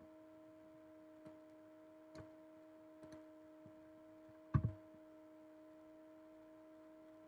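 Faint computer mouse clicks over a steady low electrical hum, with one louder, duller click about four and a half seconds in.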